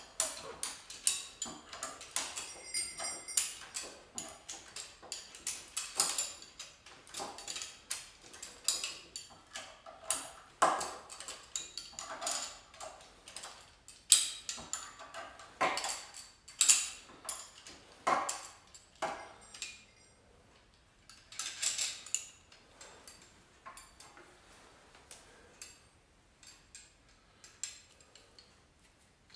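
Metal harness hames and their fittings clinking and clicking as they are handled and fitted onto a miniature horse's harness collar: irregular sharp clicks and taps, thinning out about two-thirds of the way through.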